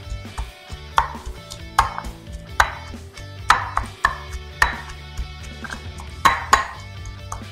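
Wooden pestle pounding shallots and green onions in a stone mortar: a run of sharp knocks, roughly one a second and a few louder than the rest.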